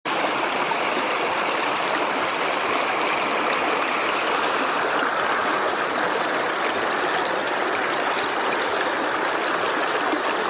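Running water of a stream, a steady, even rushing that cuts in abruptly.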